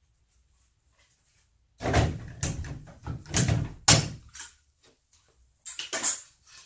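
A few loud knocks and clatters of hand work at a bathroom wall: a tight group about two to four seconds in, then one more short knock near the end.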